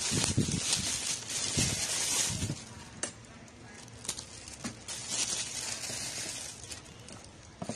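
Packaging and small parts being handled: rustling and crinkling that comes and goes, with a few sharp light clicks around the middle.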